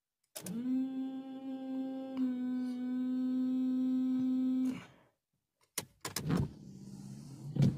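Electric windshield washer pump of a VW Jetta A3 running, a steady high whine that spins up quickly and holds for about four seconds while it sprays fluid onto the windshield; the pump is working, not clogged. After it stops comes a short pause, then several sharp clicks and a rougher mechanical sound near the end.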